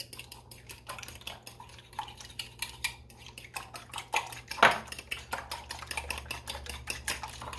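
Fork whisking an egg wash of eggs and Greek yogurt in a glass bowl: rapid ticking of the tines against the glass, several strokes a second, with one louder clink about four and a half seconds in.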